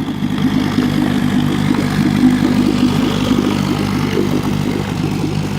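1958 Evinrude Fleet Twin 7.5 hp two-cylinder two-stroke outboard motor running strong at a steady speed.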